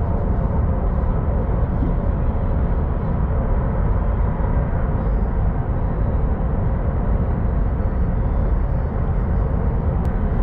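Steady rumble and rushing noise inside a high-speed train carriage running at speed.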